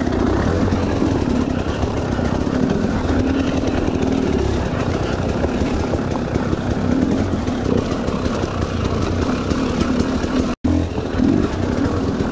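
Off-road dirt bike engine running at low, wavering revs as the bike is ridden slowly over rocks, heard close up. The sound cuts out for an instant near the end.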